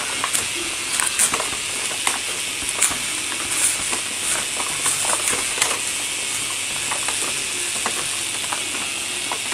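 Motorized K'NEX toy paper shredder running with its conveyor on: a steady mechanical whir with irregular plastic clicking and ratcheting from its gears as it shreds pieces of paper.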